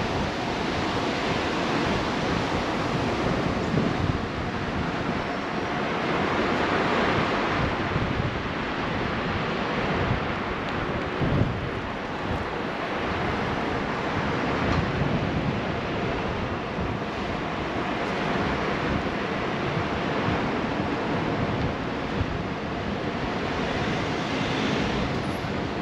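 Steady wind rushing over the microphone of a camera riding along on a moving bicycle, an even noise with a few small bumps.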